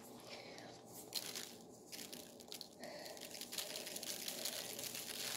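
Faint rustling and crinkling of a plastic piping bag of icing and a sprinkles shaker jar being handled, with a few small clicks.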